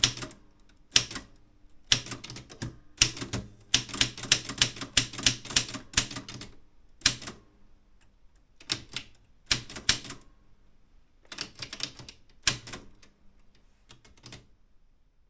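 Typewriter keys struck in quick runs of clicks with short pauses between them, stopping about a second before the end.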